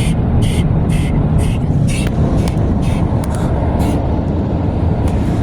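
Automatic car wash machinery running, heard from inside the car: a loud steady rumble with short hissing swishes about twice a second that turn irregular and stop about four seconds in.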